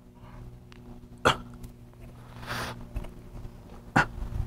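A man breathing hard while working through a bench ab exercise: two short, sharp puffs of breath, about a second in and near the end, and a longer breathy exhale between them.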